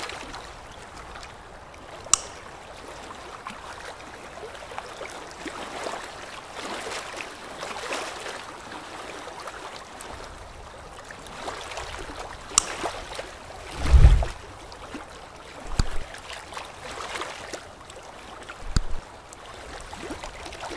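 Wet, gurgling noise from the open mouth during work on braces, with a few sharp clicks as metal dental instruments touch the brackets. One dull, low thump about two-thirds of the way through is the loudest sound.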